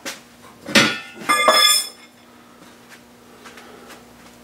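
Metal engine parts clinking as an oil baffle and pickup tube are handled: a knock, then a short metallic clang that rings briefly, about a second and a half in.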